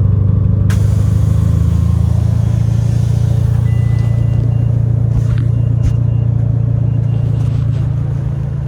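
2008 Mitsubishi Lancer Evolution X's built turbocharged 2.0-litre four-cylinder engine running steadily at idle, with a sharp click about a second in. The rebuilt engine has a tick that the machinist suggests could be a lifter of a different height.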